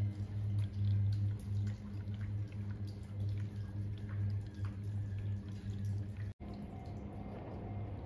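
Rainwater dripping in scattered small ticks over a low steady hum. The sound drops out for an instant about six seconds in.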